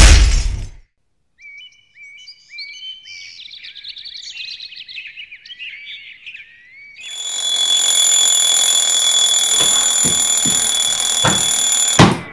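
A whoosh fades out, then birds chirp for about five seconds. An alarm clock then rings with a loud, steady, high-pitched tone for about five seconds and is cut off with a click as it is pressed off.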